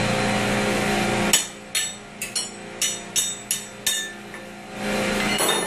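About eight sharp metallic clinks come over two and a half seconds as a wrench works the bolts of a condenser-water pump strainer cover. A steady machinery hum cuts off about a second in and comes back near the end.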